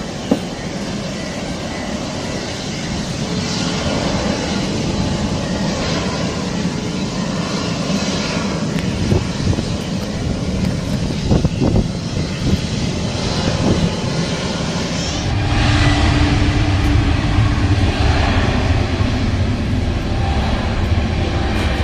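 Airbus A350's Rolls-Royce Trent XWB jet engines running as the airliner starts its takeoff roll. The engine noise is a steady rush that swells into a louder, deeper rumble about two-thirds of the way through as the jet powers down the runway.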